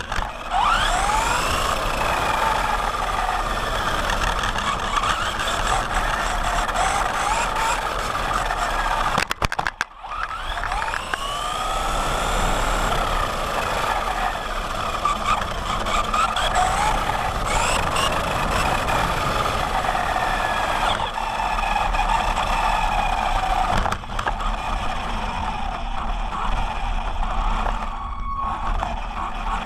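Brushed electric motor and gear drivetrain of a Remo Hobby SMAX 1/16 RC truck whining as it is driven, heard from on board. The pitch rises and falls with the throttle over a hiss of tyres on asphalt. The sound drops out briefly about ten seconds in.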